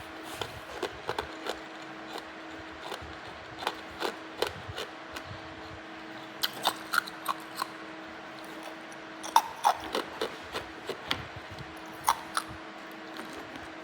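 Hard ice being bitten and chewed: irregular sharp cracks and crunches, a few at a time, with the loudest snaps about nine to ten seconds in and again near twelve seconds.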